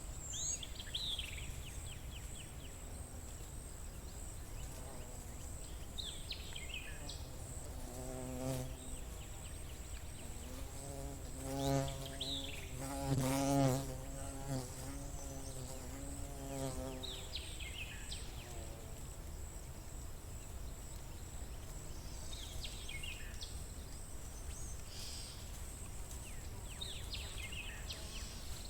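A flying insect buzzing close by for several seconds in the middle, wavering in pitch as it moves, with a songbird repeating a short descending chirped phrase every five seconds or so against a steady faint high whine.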